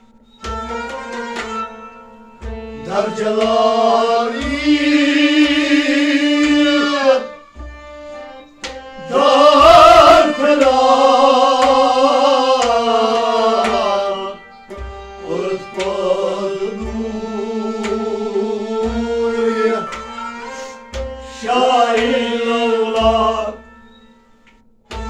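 Live Kashmiri folk ensemble: a man sings long, wavering phrases over a steady harmonium drone, with a tumbaknari (goblet drum) beating a steady rhythm and plucked and bowed strings filling the gaps between the sung lines. The music dies down near the end.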